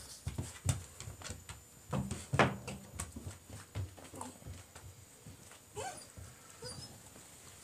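Great Pyrenees puppy giving short whimpers and yips as it squirms in someone's arms, with a few high whimpers near the end. Scattered knocks and rustles of handling run through it, the loudest a little over two seconds in.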